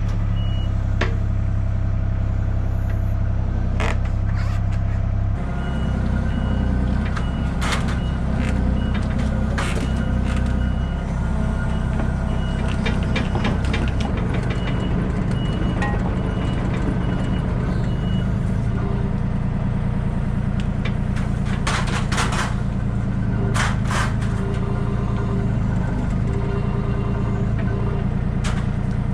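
Heavy equipment's diesel engine running and working, its note shifting about five seconds in, with a backup alarm beeping on and off through the middle and occasional knocks.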